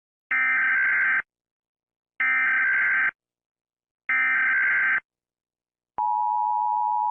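Emergency Alert System SAME header: three identical one-second bursts of screeching, warbling data tone, evenly spaced. About six seconds in, the steady two-tone EAS attention signal begins.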